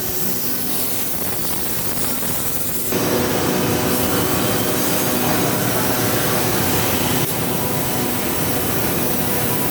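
CNC drilling machine running with a steady mechanical noise and hum. About three seconds in it grows louder and stays so for about four seconds, then drops back.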